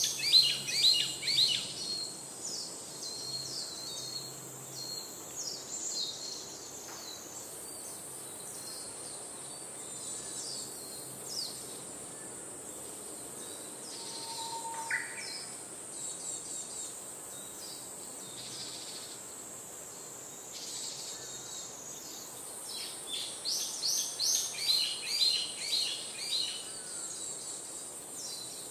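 Birds chirping and twittering in quick bursts, loudest early on and again from about 23 s to 27 s, over a steady high-pitched hiss. A single short whistle-like note sounds about halfway through.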